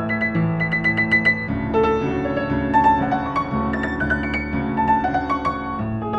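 A 1960s upright piano being played: a melody over held low chords, with a quick run of repeated high notes about a second in.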